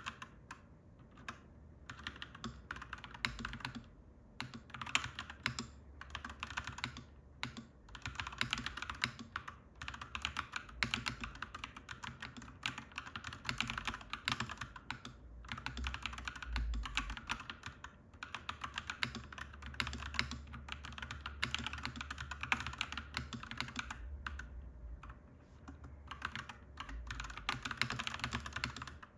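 Clacky mechanical keyboard being typed on steadily, in runs of fast keystrokes broken by short pauses. A low rumble comes and goes underneath.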